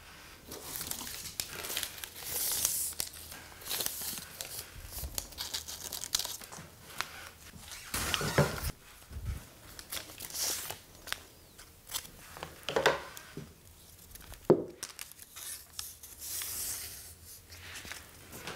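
Kraft paper strip and cardboard being handled: a series of irregular tearing and crinkling paper rustles, with one sharp tap about three-quarters of the way through.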